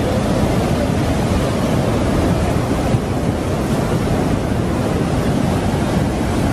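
Muddy floodwater torrent rushing and churning in a steady, loud, unbroken noise of moving water.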